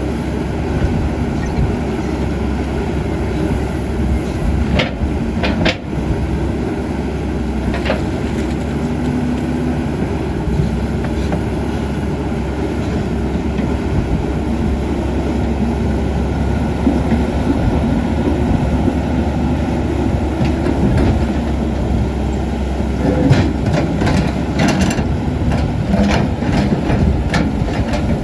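CAT 320D excavator's six-cylinder diesel engine running steadily under working load, with a few sharp knocks about five to eight seconds in and a cluster of clanks near the end.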